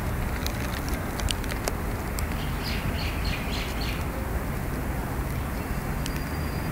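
Steady low rumble of road traffic, with a bird chirping a quick run of about six short calls a few seconds in, and a few sharp clicks just before.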